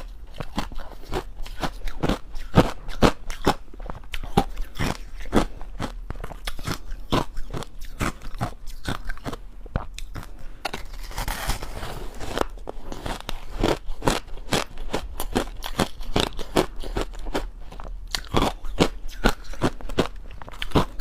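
Crushed ice coated in matcha and milk powder being bitten and chewed close to the microphone: dense, irregular crunches with no pause. A longer hissing scrape comes about eleven seconds in.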